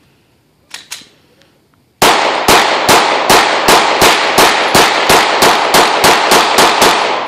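A semi-automatic handgun fired rapidly, about seventeen shots at three to four a second, each shot echoing, starting about two seconds in. Before it, two sharp clicks about a second in.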